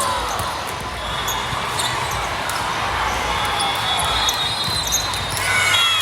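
Volleyball game in a gym: sneakers squeaking on the hardwood court and sharp ball contacts, with a few louder hits partway through.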